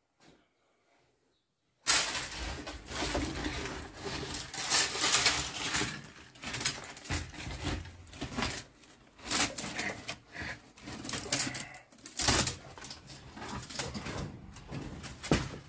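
Near silence for about two seconds, then dry sticks and brushwood rustling, scraping and snapping as they are handled and pushed into a clay tandoor oven to fire it, in dense irregular crackles.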